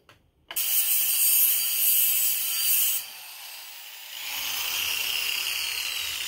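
Angle grinder cutting through the trike's metal crash bars, a loud harsh grinding for about two and a half seconds. It then drops away and gives way to a quieter, steadier running sound with a slowly falling whine.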